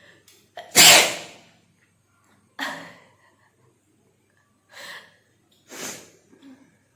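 A woman sneezing: one loud sneeze about a second in, then three shorter, quieter sneezes spaced a second or two apart, brought on deliberately for a sneezing challenge.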